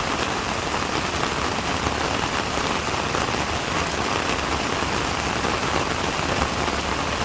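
Steady rain falling on a hard surface: an even patter of many raindrops.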